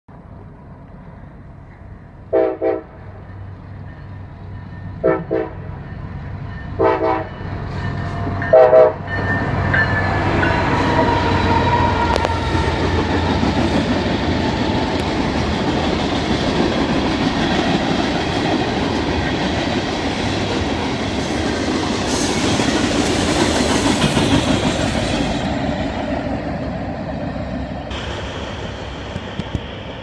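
Union Pacific freight train led by an EMD SD70AH-T4 diesel locomotive: the air horn sounds four short blasts a couple of seconds apart as it approaches. Then the locomotives and freight cars roll past close by in a loud, steady rumble, which eases off as the train moves away near the end.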